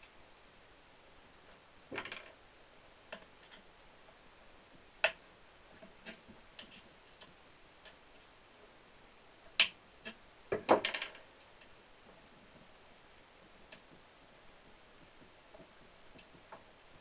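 Scattered sharp clicks and taps of hand tools and small parts being handled while a nitro RC truck is taken apart: a single loud click about five seconds in, another near ten seconds, then a quick rattle of several clicks.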